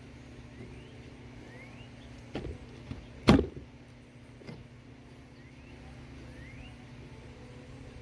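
A few knocks from boards and tools being handled on a workbench while drill holes are marked. Two light knocks come first, then one loud sharp knock about three seconds in, with a steady low hum underneath.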